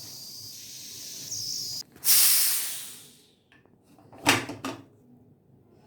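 Pressure cooker letting out a sudden loud burst of steam hiss that fades away over about a second, followed by two sharp knocks as the cooker is handled.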